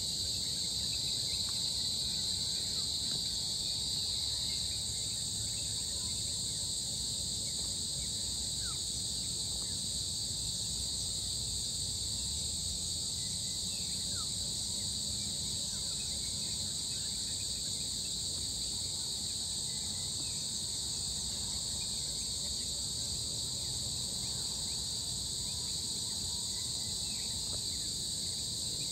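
Steady chorus of insects, a continuous high-pitched drone that does not change, over a faint low rumble.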